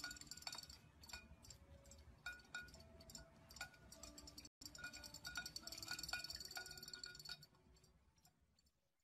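Faint background music of light chiming notes, cutting off about seven and a half seconds in.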